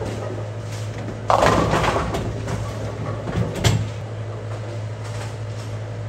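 Bowling ball hitting the pins about a second in, a crash of pins that fades over about a second, for a strike; a single sharp knock follows a couple of seconds later, over a steady low hum.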